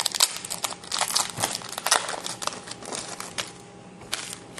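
Plastic wrapping crinkling, dense and crackly for the first three seconds or so, then thinning to a few single crackles, as a sealed trading card box is unwrapped and opened.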